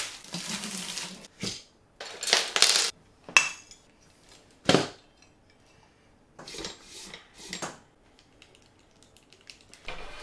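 Metal parts of a dual-monitor stand being handled during assembly: a series of short, separate clinks and knocks, the loudest about five seconds in.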